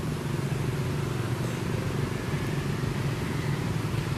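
A motor vehicle's engine running with a steady low hum, over a background hiss of outdoor noise.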